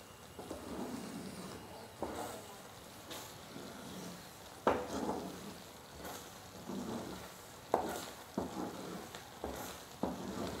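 A spatula stirring a thick cashew and sugar-syrup paste in a pan, swishing through it and knocking against the pan now and then. About six sharp knocks, the loudest near the middle of the stretch.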